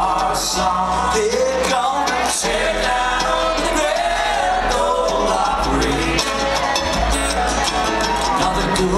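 A bluegrass string band playing live, continuing the song with no words.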